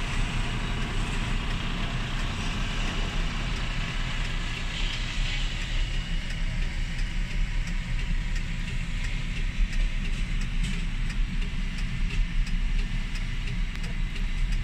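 Heavy truck diesel engine idling with a steady low rumble, with faint clicking in the second half.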